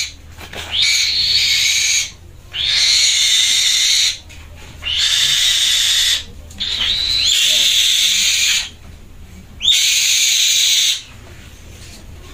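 Black-winged kite giving five harsh, hissing screams in a row, each one to two seconds long and opening with a short rising note.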